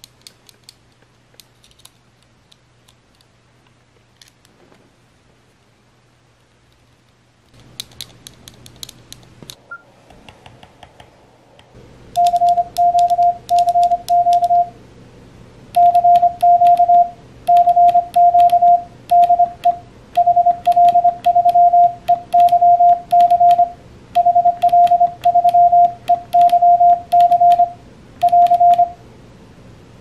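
Clicking of an N0SA SP4 magnetic-tension iambic paddle's levers being pressed. From about twelve seconds in, the paddle keys a steady single-pitch Morse sidetone in dits and dahs, sending the CQ call "CQ CQ DE HL3EYC HL3EYC AR", with the paddle's clicks under the beeps.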